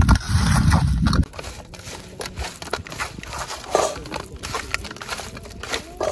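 Hands working salt and spice powder into a bowl of raw cleaned river prawns, giving irregular small wet clicks and ticks. A low rumble on the microphone fills about the first second.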